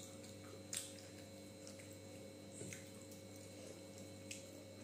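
Quiet sounds of eating by hand: fingers squeezing and mixing rice with fish curry on a steel plate, with a few small clicks, the sharpest about a second in. A steady low hum runs underneath.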